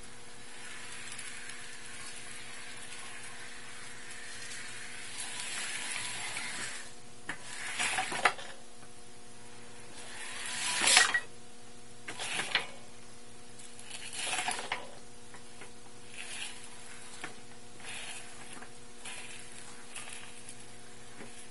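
Electric drive motors of a power-wheelchair base running its wheels over a concrete floor, in uneven surges rather than a smooth run, the loudest about halfway through. The throttle is really touchy. A steady hum sits underneath.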